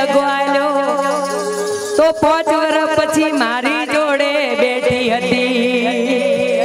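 Live Gujarati folk music: a wavering, ornamented melody line over a steady held drone, with a few drum hits.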